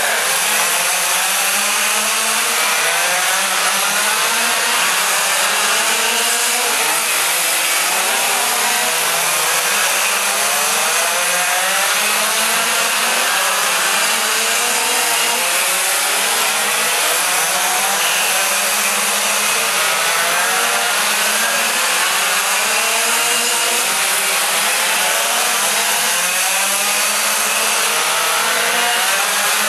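Several quarter-scale RC sprint cars' small two-stroke gas engines racing together, with overlapping whines that rise and fall as each car accelerates down the straights and lifts for the turns.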